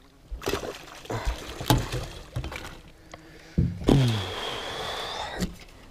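A fish being landed in a landing net beside an inflatable boat: a run of knocks and splashes in the first two seconds, then a steady hiss for about a second and a half as the net comes up out of the water.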